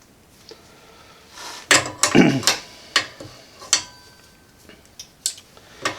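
Wire cutters snipping through a bundle of wiring-harness wires and handling the cut plug: a series of sharp, irregular clicks and snaps.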